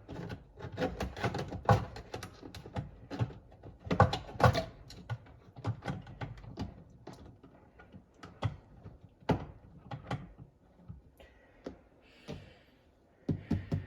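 Irregular clicks, knocks and clatter of dishwasher parts being handled and worked during a repair. The knocks are dense in the first few seconds and sparser after.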